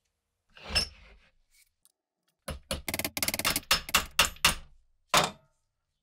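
Metal tools and small parts handled on a wooden workbench: a thunk, then a quick run of sharp clicks and knocks, and one last knock near the end.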